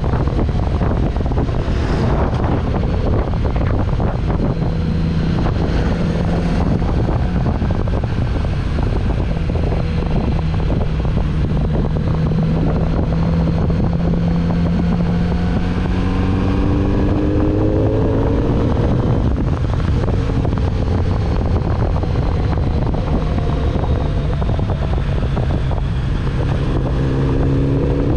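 Kawasaki Z900RS inline-four engine running under way with heavy wind noise on the microphone. In the second half the engine note climbs and falls back twice.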